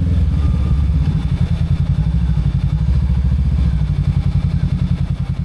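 Motorcycle engine running under way, a loud low throb. About four seconds in, its firing pulses become more distinct.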